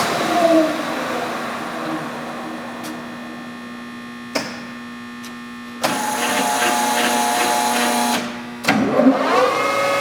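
Leblond servo shift engine lathe's spindle gear drive shifting speeds. The steady gear whine sags and fades, a clunk comes about four seconds in, and the drive cuts back in sharply near six seconds. A second drop and clunk near nine seconds are followed by a whine rising in pitch as the spindle spins up to a higher speed.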